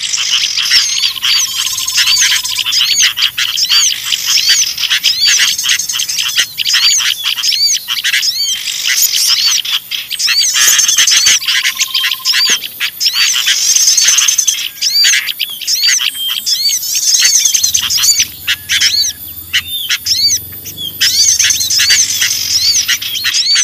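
Bird-lure recording: a dense, noisy chorus of small songbirds chirping rapidly without a break, mixed with sooty-headed bulbul calls, a sound used to draw small birds in.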